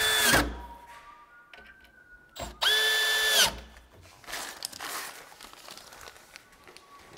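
Cordless drill-driver running at a steady speed in two short bursts of about a second, driving the screws for cabinet door pulls. The first burst ends just after the start and the second comes about halfway through. It is followed by a softer crinkling rustle of plastic being handled.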